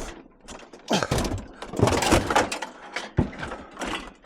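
Irregular knocks and clatter of scrap metal being handled and loaded, several separate bangs about a second apart.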